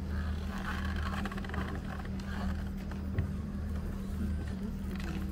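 A steady low engine hum runs under the scene, with fainter indistinct noise about a second in.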